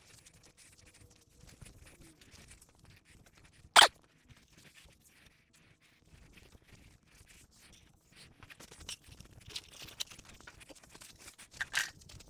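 Paper towels wiping degreaser and rust residue off a cast-iron table saw top, heard as faint rustling strokes that come thicker in the second half. One brief, sharp sound about four seconds in is the loudest thing.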